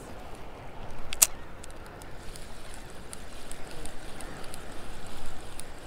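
Spinning reel being worked after a cast: one sharp click about a second in, then the handle cranked with faint quick ticking from the reel, over a low steady wash of shallow surf water and wind.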